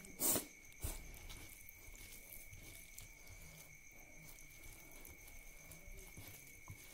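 Close-up eating sounds of rice and curry eaten by hand: a short, loud mouth noise about a quarter second in, a click near one second, then soft chewing and the wet squish of fingers mixing rice into curry.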